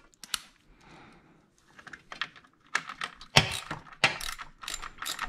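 Hand ratchet on a 10 mm bolt clicking in short, irregular runs as the bolt is tightened, with the sharpest metal clicks about three and a half seconds in.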